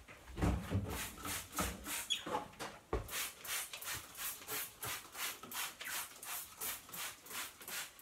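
Trigger spray bottle squirting cleaner onto a cast engine part in quick, repeated strokes, about three to four a second, with a knock about three seconds in.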